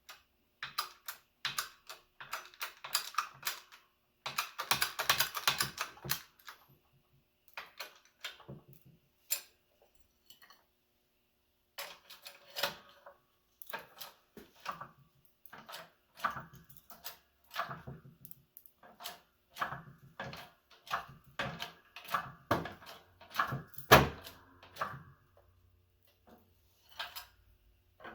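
Irregular clicks, clinks and knocks of metal parts and tools being handled while a control arm bushing is set up and pressed in. A louder metal clank comes near the end.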